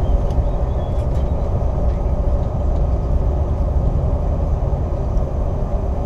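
Steady low cabin rumble of a CRJ-700 regional jet rolling along the ground after landing: its rear-mounted GE CF34 turbofans running at low power, with wheel and airframe noise and a faint steady hum.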